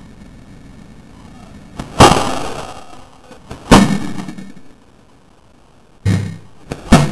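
L96 spring-powered bolt-action airsoft rifle making a series of sharp, loud clacks: a small click then a big one about two seconds in, another near four seconds, and two close together near the end, each ringing briefly.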